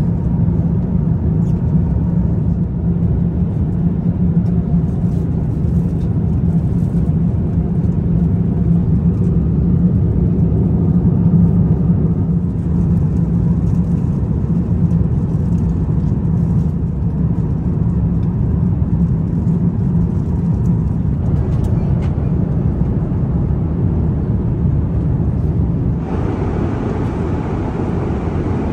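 Steady low drone of an Airbus A350-900 cabin in cruise: engine and airflow noise heard from a passenger seat, its tone shifting slightly near the end.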